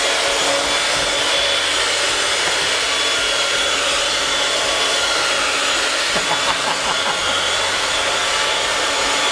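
Electric hand mixer running steadily with a high whine, its whisk beaters churning a thick, lumpy dough of boiled potatoes and quark that they fail to break up.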